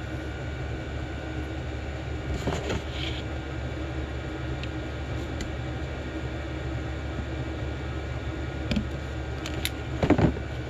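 Steady low hum of a running machine, with a few small clicks and knocks as a carburetor and its float are handled and adjusted with needle-nose pliers. The knocks are loudest near the end, as the carburetor body is picked up and turned over.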